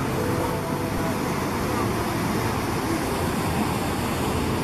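Whitewater rapids of a fast mountain river rushing over and between rocks: a steady, unbroken rush of water.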